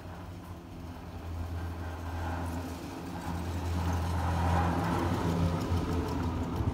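Chairlift haul rope and chair running over a lift tower's sheave rollers: a steady low hum with a rushing whir that swells as the chair passes the tower, loudest about four and a half seconds in.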